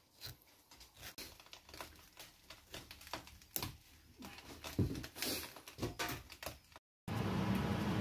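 Faint scattered clicks and short scrapes of a kitchen knife scoring fresh sardines on a cutting board. Near the end a steady rushing noise starts.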